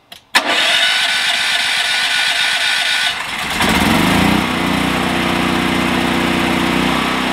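Westinghouse WH10000DF portable generator started with its electric start: the starter whirs for about three seconds, then the engine catches, rises in speed and settles into a steady run.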